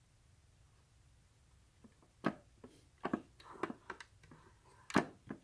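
Plastic clicks and knocks from a Black & Decker flip waffle maker being turned by hand on its rotating stand. After a quiet start, a string of sharp clicks runs for about three seconds, with one loud knock near the start of the string and another near its end.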